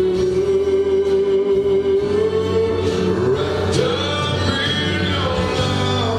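Gospel singing with musical accompaniment. The voices hold long notes and slide in pitch about midway through.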